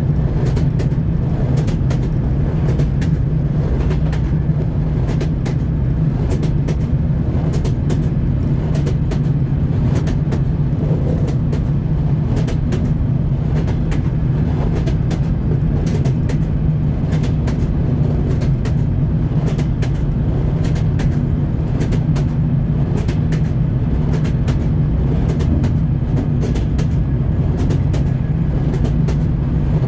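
Train wheels clattering over rail joints: a steady low rumble under repeated sharp clicks.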